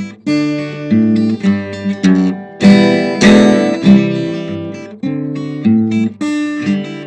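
Acoustic guitar played alone in an instrumental break of the song: picked notes and chords, with a louder strummed passage about three seconds in.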